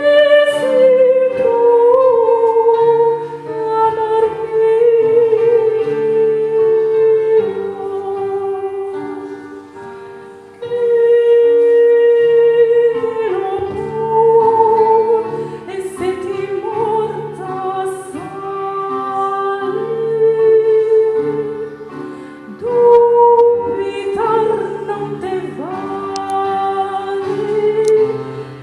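Lyrical, classical-style solo singing: a long-held melody line with vibrato over sustained accompanying chords. The phrases break off briefly about ten seconds in and again a little after twenty-two seconds.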